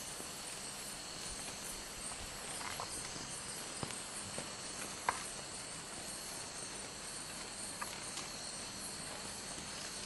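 Steady high-pitched chorus of night insects, with a few faint clicks and taps.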